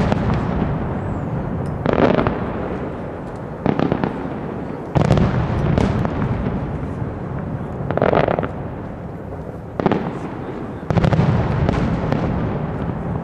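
Aerial firework shells bursting in a display: about six loud booms at irregular spacing of one to three seconds, each followed by a long rumbling echo and crackle that fills the gaps.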